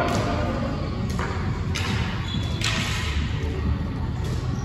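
Ice hockey skates scraping and carving on the ice, several short scrapes over a steady low rumble.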